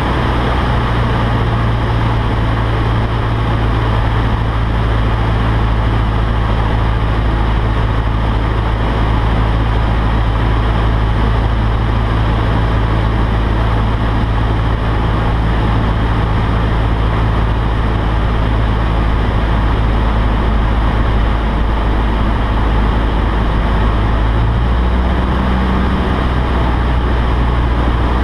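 Cessna 152's four-cylinder Lycoming engine and propeller running steadily in flight, heard from inside the cabin. The engine note shifts slightly about 25 seconds in.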